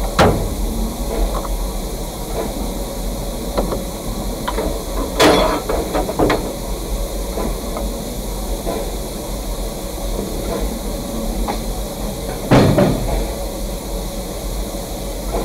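Narrow-gauge steam locomotive standing at a water stop, hissing steadily, with a few knocks and clanks at intervals: one at the start, two close together a third of the way in, and the loudest near the end.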